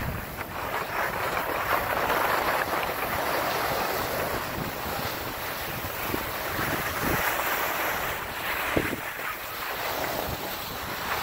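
Skis sliding and scraping over packed, groomed snow in a steady hiss that swells and eases, with wind buffeting the microphone and a sharper scrape about nine seconds in.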